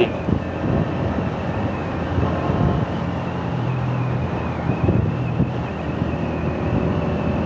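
Honda CG 125's single-cylinder four-stroke engine running steadily as the motorcycle rides along, with wind noise on the microphone.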